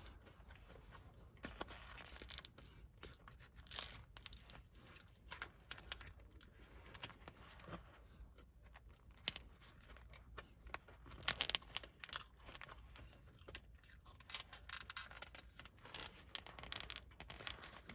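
A person chewing a dry, crumbly lemon protein cookie: irregular soft crunches and mouth clicks, a little louder about 11 seconds in.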